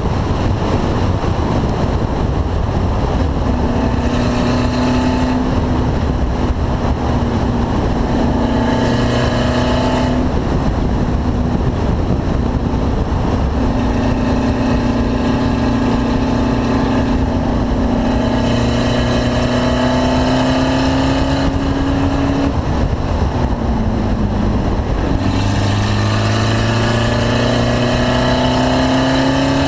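Car engine running hard at speed, with heavy wind and road rumble. Its note holds steady, drops around a third of the way in and again near the end, then climbs back up. The engine is one its owner says is misfiring.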